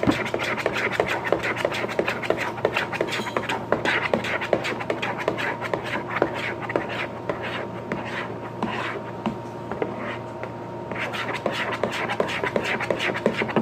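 Slime mixture of glue, shaving cream and food colouring being stirred in a bowl: a steady run of quick ticks and scraping from the stirring.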